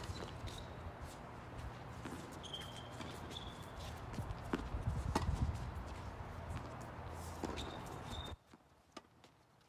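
Tennis balls struck by rackets in a doubles rally: a sharp pop as the serve is hit, then scattered pops of returns over a low steady rumble, with a few short high squeaks. The background cuts off sharply about eight seconds in, leaving it much quieter.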